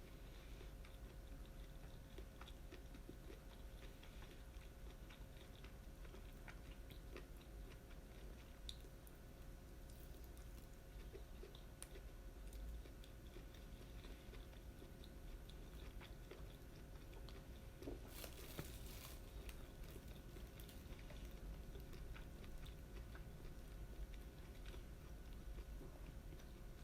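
Faint close-up chewing of grilled yakitori, with scattered soft mouth clicks and a brief louder rustle about eighteen seconds in.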